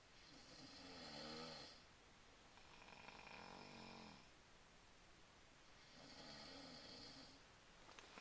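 Faint snoring: three pitched, rasping snores, one every two to three seconds, with a fourth starting right at the end.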